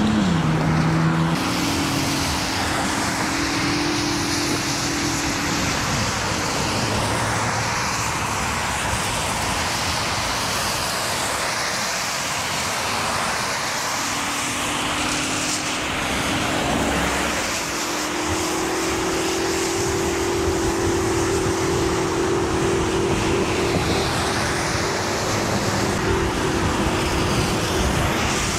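Electric unicycle riding on wet pavement in rain: a steady hiss of tyre spray and wind on the microphone, with the hub motor's whine coming and going with speed, rising in pitch in the second half and then holding steady.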